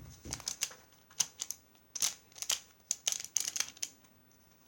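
Plastic pyraminx puzzle being turned fast in a speedsolve: quick bursts of clicking and clacking from its pieces, with a short lull near the end.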